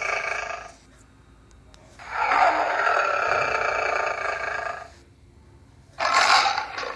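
A farm animal calling: two long calls of about two and a half seconds each, then a shorter one near the end.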